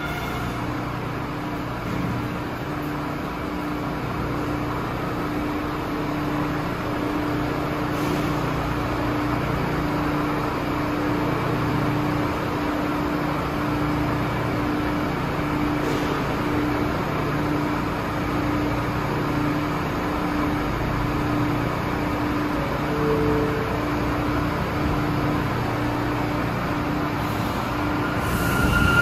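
Steady rumble of a subway station platform, with a low hum that pulses about once a second.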